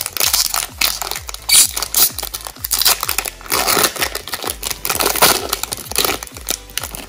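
Foil Pokémon booster pack wrapper being torn open and crinkled by hand, in irregular rustles and crackles.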